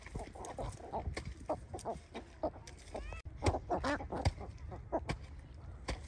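Birds clucking in many short calls in quick succession, with a few sharp clicks among them.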